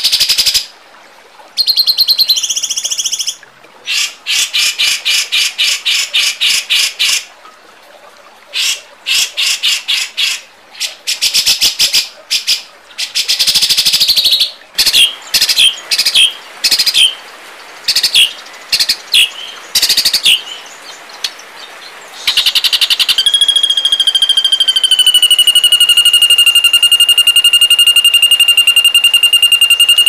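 Recorded songbird calls used for masteran tutoring: a series of sharp, rapid, chattering bursts a second or two long with short pauses between them. About three quarters of the way through, a long steady high trill on one pitch begins and carries on as the loudest part.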